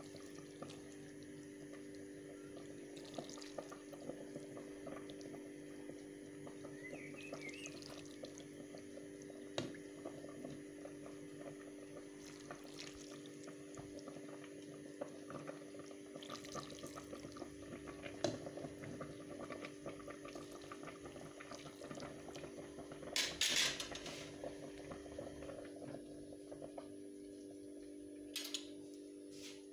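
Tomato sauce ladled over spaghetti in a pan, then the sauced pasta simmering with a soft, fine crackle over a steady low hum. A brief louder noisy rush comes about 23 seconds in.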